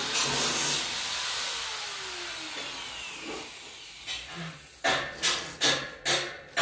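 Woodworking on a wooden railing. A power tool winds down with a falling whine and fading noise over about four seconds. From about five seconds in, even strokes on the wood follow, about two and a half a second.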